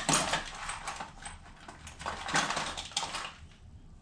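Handling noise of a seat collar being slid onto a dropper seat post and fitted to the bike's seat tube: two spells of scraping and rustling, one right at the start and one about two and a half seconds in.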